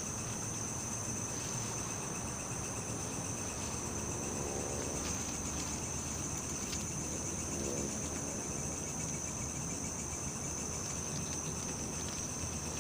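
Crickets chirping in a steady, high continuous trill.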